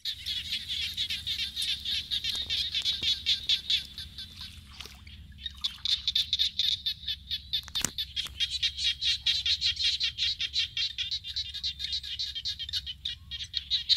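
Rapid, rhythmic high-pitched chirping from a small animal, about seven chirps a second. It breaks off for about a second near the middle, then resumes. A single sharp click sounds about eight seconds in.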